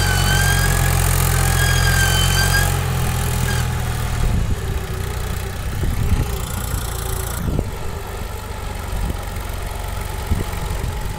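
Old tractor's diesel engine working hard under load as it pulls a heavily loaded sand trolley out of soft sand: steady and heavy for about the first three seconds, then easing off and running unevenly. A high wavy whistle sounds twice in the first three seconds.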